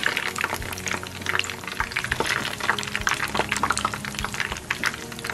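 Changsha stinky tofu blocks frying in hot oil in a pan: a dense, steady sizzle of small crackling pops.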